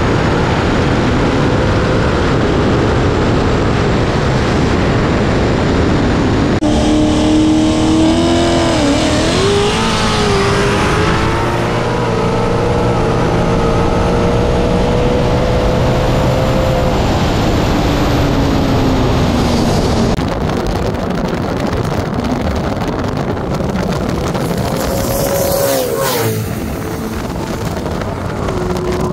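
Two modified Ford Mustangs, one fitted with a ProCharger F-1A supercharger and one with a single turbo, at full throttle in a 60-to-160 mph highway roll race. The engine pitch climbs steadily under hard acceleration, with heavy wind rush on the outside-mounted microphone. The sound changes abruptly about a third of the way in and again near the end.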